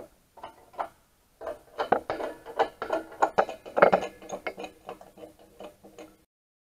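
Metal clinks and rattling knocks of steel wheel studs being handled and fitted into a rusty wheel-hub flange, with a faint ringing tone from the metal under them.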